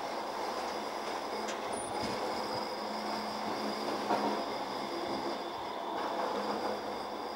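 Bombardier M5000 Manchester Metrolink tram running past on a street curve: steady rolling noise of its wheels on the rails with a faint high-pitched ring.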